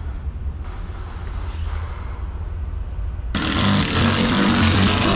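Cordless drill driving a screw through a wooden gunwale strip. After a few seconds of quieter handling noise, the drill runs loudly for about two and a half seconds, starting about three seconds in.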